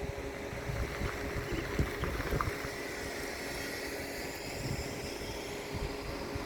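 Wind buffeting the microphone in irregular low gusts, over a steady faint background hum.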